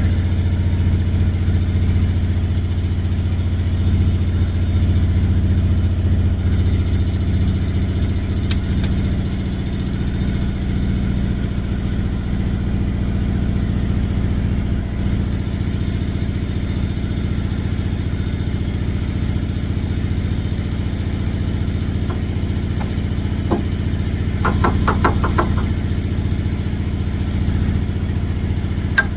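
An engine running steadily at an even speed. About 25 seconds in, a short, fast run of clicks is heard.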